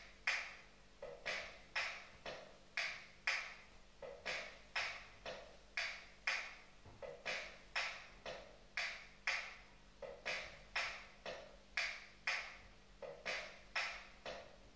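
Recorded zamba percussion on a bombo legüero, played back with little bass: sharp, dry strikes in a steady rhythm of about two to three a second, in repeating groups.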